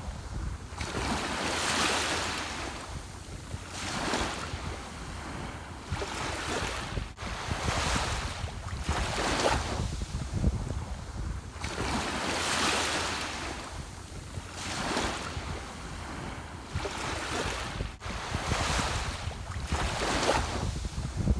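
Ocean surf: waves breaking and washing up a shore, a rush that swells and fades every two to three seconds over a steady low rumble.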